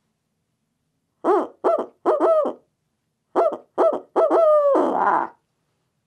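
H&S Strut owl mouth call blown in the barred owl's 'who cooks for you, who cooks for you all' cadence, a locator hoot meant to make roosted turkeys shock-gobble. Two phrases of hoots, each a couple of short notes and then a longer falling one; the second phrase ends in a throaty, gargled 'all'.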